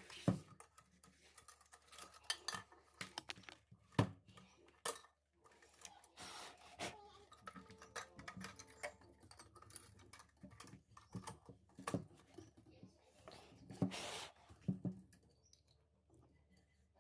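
Metal parts of an old lantern being handled during restoration: irregular clinks, knocks and clicks, with a couple of short scraping or rubbing noises.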